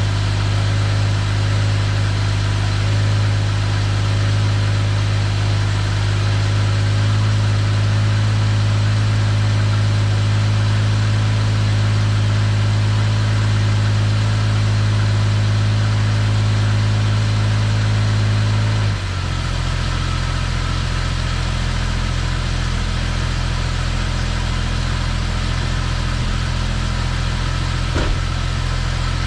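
Jaguar XJS V12 engine idling steadily after an overhaul. About two-thirds of the way through, the sound changes abruptly and drops a little in level, and a short click comes near the end.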